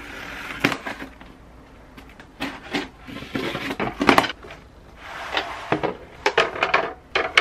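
A cardboard shipping box being unpacked by hand: short scrapes and rustles as the flaps are pulled open, then wooden flat-pack shelf panels being lifted out, knocking against the cardboard and each other.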